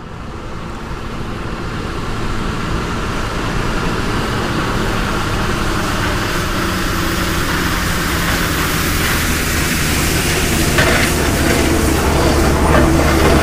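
Municipal street-cleaning vehicle running, its engine drone growing louder over the first few seconds and then holding steady under a broad hiss, with rattling clatter near the end.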